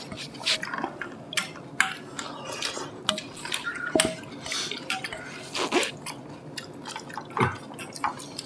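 Wet mouth sounds of people eating slippery acorn jelly: chewing and smacking, with many scattered short clicks.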